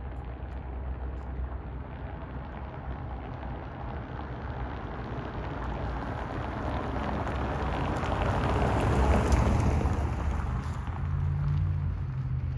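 A car driving past on a cobblestone pavement: its tyre noise grows, is loudest about nine seconds in, and then fades.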